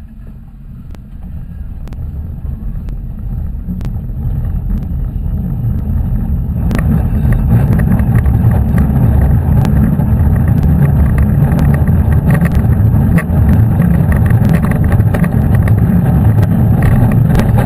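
Hopkins steel roller coaster train rolling along its track: a low rumble that grows steadily louder over the first seven seconds as it picks up speed, then holds loud, with scattered clicks and clacks.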